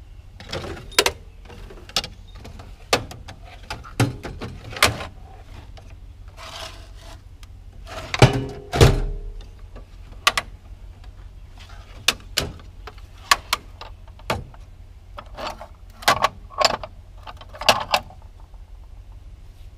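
Snap-on wrenches clinking and knocking against each other as they are picked through and set down: irregular sharp metallic clanks, with a heavier thump about nine seconds in.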